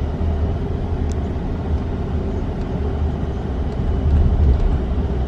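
Steady low rumble of a moving road vehicle heard from inside, with engine and road noise.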